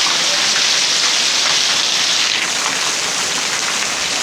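Steady rain falling, an even, constant hiss of drops.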